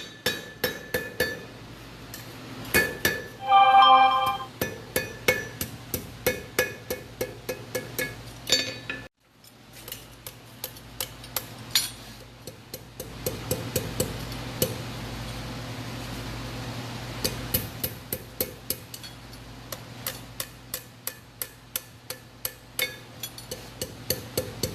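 Blacksmith's hammer striking hot iron on an anvil: a steady run of ringing blows, about two a second, with a short break about nine seconds in. A steady low hum runs under the blows in the second half.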